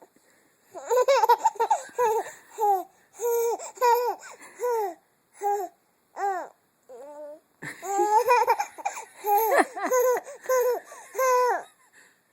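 Baby laughing in high-pitched, repeated bursts: a run of short laughs, a brief lull with a few single squeals, then another run of laughs.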